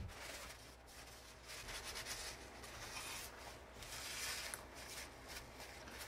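Soft, irregular rubbing and rustling of hands handling a paper tissue.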